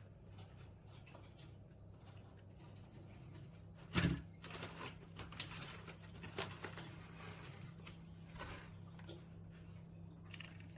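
Faint kitchen handling sounds as a lasagne is assembled in a baking dish: one sharp knock about four seconds in, then light scrapes and clicks, over a steady low hum.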